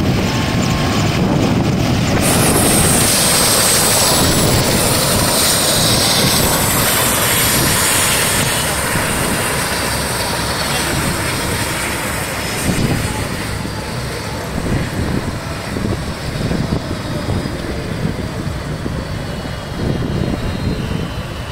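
Mil Mi-35 military helicopter shutting down: the whine of its twin turbine engines slides steadily down in pitch as they spool down and the rotor slows, and the overall noise fades gradually.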